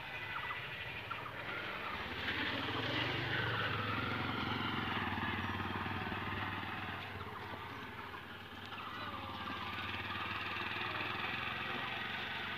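A vehicle engine running, swelling and fading twice.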